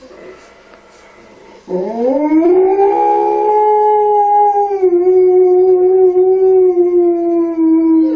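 Alaskan Malamute howling: one long, unbroken howl that starts about two seconds in, rises in pitch and then holds steady, dipping slightly about halfway through.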